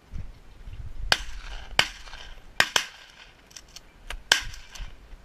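Dry stalks of a tall grain field snapping and rustling against the camera as it is pushed through them: five sharp snaps in about three and a half seconds, with brushing in between.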